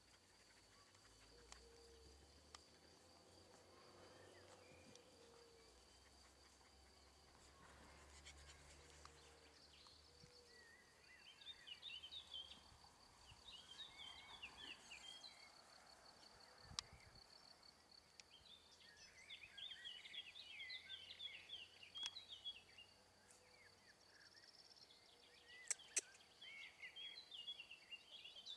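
Quiet garden ambience: faint birds chirping in short bursts from about ten seconds in, over a steady thin high-pitched tone.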